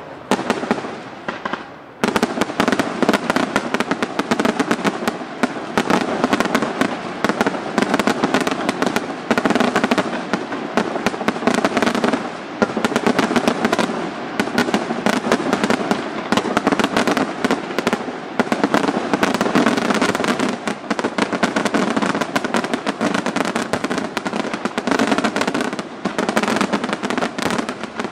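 Aerial fireworks display: after a short lull, a dense, unbroken barrage of shell bursts and crackling bangs starts about two seconds in and keeps going.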